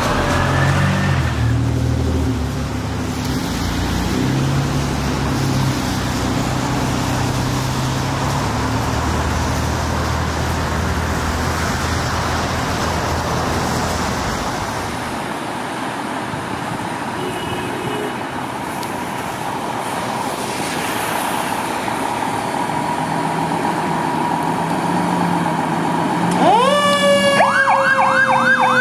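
Fire truck siren with its engine running and traffic noise as it approaches through traffic. Near the end the siren of a fire department tower ladder truck starts up loud, sweeping rapidly up and down in a yelp.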